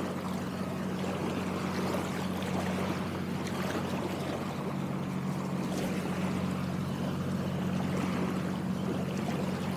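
Steady wash of moving water with a constant low hum underneath.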